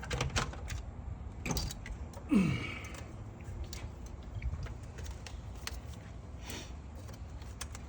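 Scattered clicks, knocks and clinks of hands, tools and parts at work in a truck's engine bay, with a short falling squeak about two and a half seconds in, over a low steady hum.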